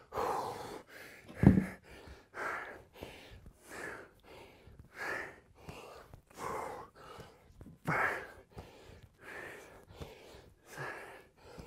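A man's heavy, rapid breathing from hard exertion, in and out about twice a second, with a single thump about a second and a half in.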